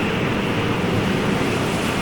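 Ocean surf: a steady wash of waves at an even level, with no single crash standing out.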